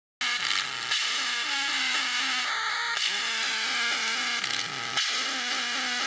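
Circuit-bent digital bird synthesizer, its chirp kit run through a comparator, bandpass filter, decade-counter sequencer and vactrols, playing a harsh noisy loop. A dense hiss sits over short stepping low notes, and the pattern repeats about every four seconds. It cuts in abruptly just after the start.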